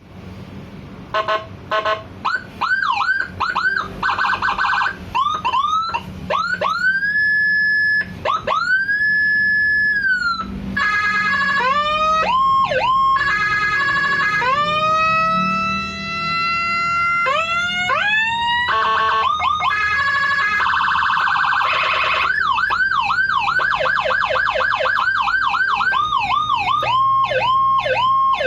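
A 200-watt electronic siren module with Whelen Euro-style tones, stepping through its tone presets one after another. It plays short beeps, quick yelps, and slow wails that rise, hold and fall. It also gives layered multi-pitch wails and a brief harsh horn-like buzz, then settles into a rapid yelp for the last third.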